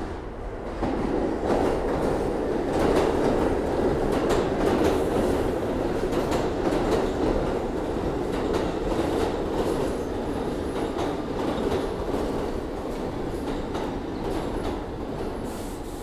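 New York City subway train running along the far track through an underground station, its steel wheels rumbling and clicking on the rails. The sound swells about a second in as the train arrives and eases a little toward the end.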